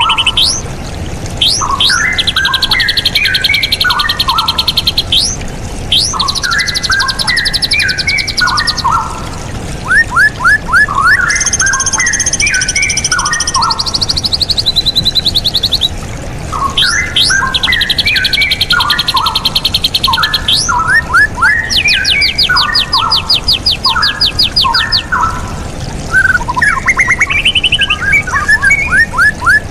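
Straw-headed bulbul (cucak rawa) singing loudly in repeated phrases: bubbling runs of notes alternate with fast, high trills, the phrases coming again every several seconds.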